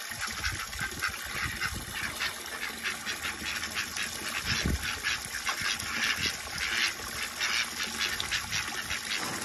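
Garden hose running into a plastic water tub with a steady splashing gush, while ducks quack.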